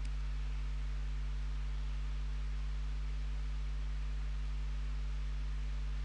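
Steady low electrical hum with a faint hiss under it: background noise of the recording setup, with no other sound.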